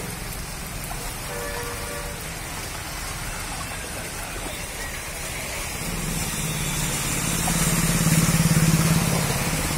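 Steady rain falling on a flooded street. From about six seconds in, a motorcycle engine approaches and passes close by through the floodwater, loudest around eight to nine seconds, with water hissing off its wheels.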